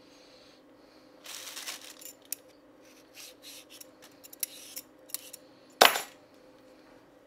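Vegetable peeler scraping along a raw carrot: a burst of scraping about a second in, then a run of short quick strokes, then one sharp clack near the end, the loudest sound here.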